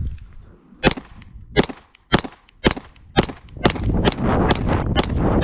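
Rapid string of 9mm shots from a Glock 17 Gen 5 pistol fitted with a compensator, about half a second apart, starting about a second in. Strong wind buffets the microphone under the shots, growing louder in the second half.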